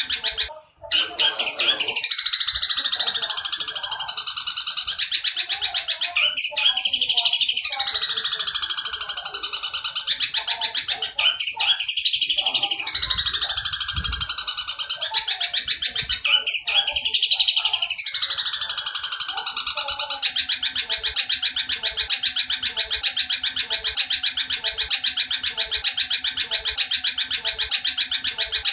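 Oriental dollarbird (tengkek buto) calling in a fast, harsh rapid-fire chatter. It comes in phrases, each with a falling sweep, about every five seconds, then turns into an unbroken fast rattle for the last third.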